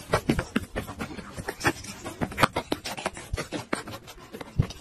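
Irregular knocks, bumps and rustles of a blanket and a hand-held phone being jostled, several a second.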